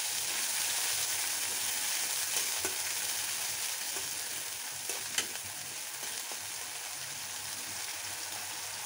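Chopped onion and ginger-garlic paste, splashed with a little water, sizzling in hot oil in a karahi while a spatula stirs it. The spatula scrapes and knocks against the pan a few times, with one sharp knock a little past five seconds in.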